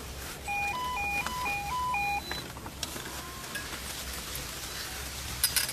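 A short electronic jingle at a ski-lift station: about eight clean beeps alternating between two pitches over a little under two seconds, ending on a single higher beep. A sharp clack comes near the end, over a steady low hum.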